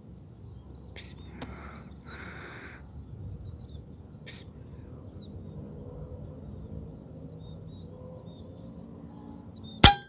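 Air rifle shot near the end: a single sharp crack with a brief metallic ring, loud over faint low outdoor background noise.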